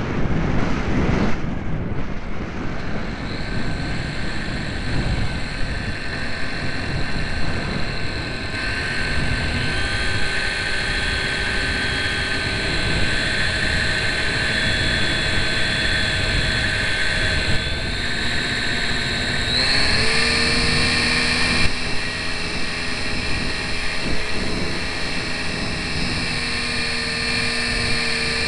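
Electric motor and propeller of a GWS Slow Stick RC plane whining steadily, heard from a camera mounted on the plane, over wind rushing past the microphone. The whine steps up and down in pitch a few times, rising highest about two-thirds of the way through.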